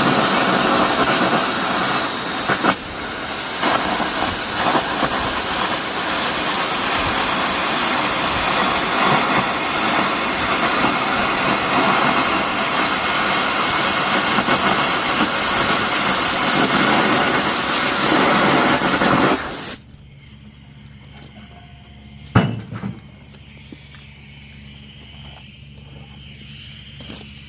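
Air carbon arc gouging on steel: a loud, steady hiss of the arc and compressed-air jet blowing molten metal away, cutting off abruptly about twenty seconds in. A single sharp knock follows a couple of seconds later over a faint steady hum.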